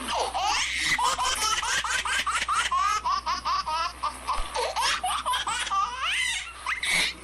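High-pitched laughing sound effect: fast, repeated peals of laughter over a steady low hum. It starts and stops abruptly.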